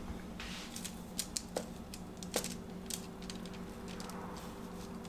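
A blade being drawn through risen bread dough to score it: soft scraping with several light, sharp clicks between about one and three seconds in. A steady low hum runs underneath.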